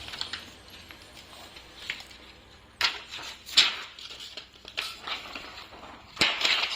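Plastic keyboard parts being handled and taken apart by hand: scattered light clicks and rustles, with a few sharper clacks about three and six seconds in.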